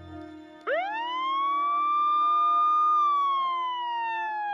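Police-style siren wailing: its pitch sweeps up quickly under a second in, holds high, then glides slowly down.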